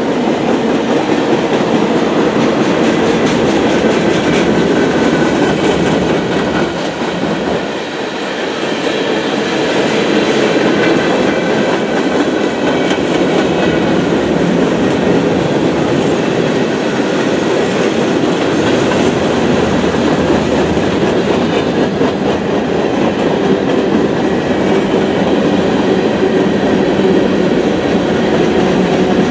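Freight cars of a CN manifest train (tank cars, gondolas, covered hoppers) rolling past, with steel wheels clattering steadily on the rails over a constant rumble. Faint high steady tones ride above it, and the sound dips briefly about seven seconds in.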